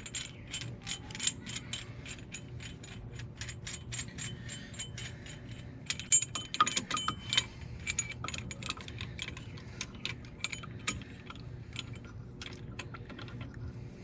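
Quick, irregular metallic clicking from a hand-turned caliper compression tool, its threaded screw being wound in to push the front brake caliper piston back. A few louder clicks come around six to seven seconds in.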